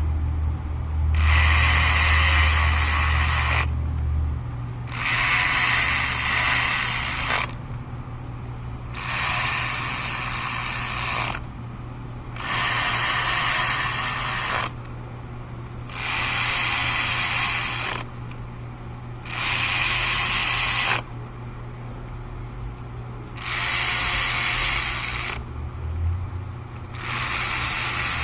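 Ratchet wrench clicking in repeated bursts, each about two seconds long, about eight times.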